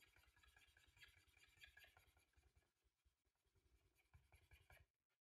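Very faint scratching of a black acrylic paint marker's tip scrubbed rapidly back and forth on paper to lay down a colour swatch. It stops shortly before the end.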